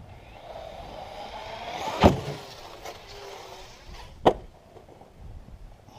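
Brushless electric motor of an Arrma Kraton 6S RC truck whining as it speeds up, then a hard impact about two seconds in and a second, sharper knock a couple of seconds later.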